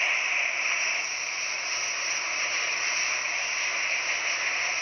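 Steady hiss of water spray and steam rising off a smouldering burnt structure as firefighters douse it.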